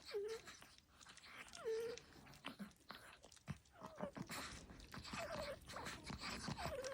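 Chihuahua puppy snoring in its sleep: about five faint, short whistling squeaks on its breaths, each falling in pitch and then levelling off.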